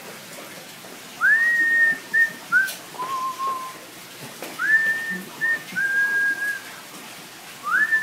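A short whistled tune: a note sweeping up and held, a couple of short notes, then a lower held note. It is repeated three times, about three and a half seconds apart.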